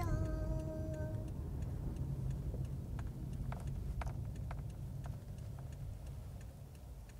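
A held note stops about a second in. After it come a low steady rumble and faint ticks about twice a second, all slowly fading out.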